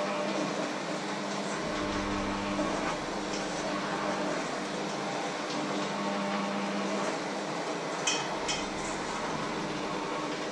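Handheld electric kitchen mixer running in a bowl, its motor hum starting and stopping, with a few sharp clicks about eight seconds in.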